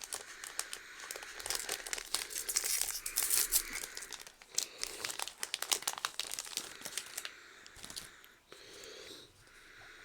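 Trading card booster pack wrappers crinkling and tearing open, a dense crackling that eases into a softer rustle in the last couple of seconds.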